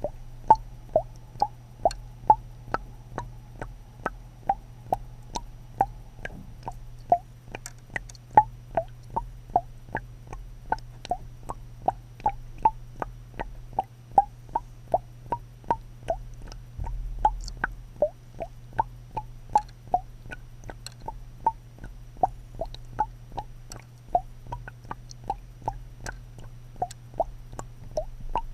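Regular clicking, about two clicks a second, over a steady low hum.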